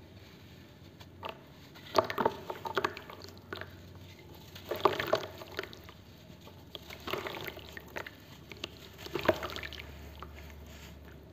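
A damp block of packed charcoal sand being crumbled by hand into a plastic basin of shallow water: four bursts of crisp snapping and crackling, a couple of seconds apart, as pieces break off and drop into the water.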